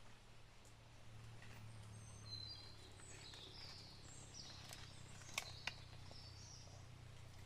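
Faint outdoor ambience with birds chirping in short high calls over a low steady hum. Two sharp clicks come close together about five and a half seconds in.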